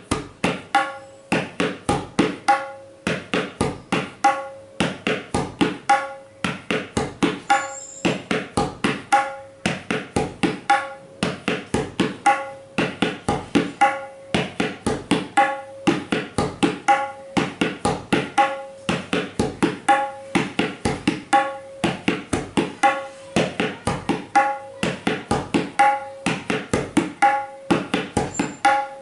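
Tabla played solo: the 'tere kete ta' phrase repeated over and over at a steady tempo. Each cycle is a run of quick, dry strokes ending on a ringing 'ta' from the right-hand drum, about once a second.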